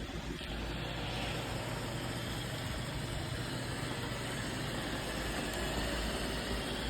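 Roomba robot vacuum running, a steady whir of its motor and brushes.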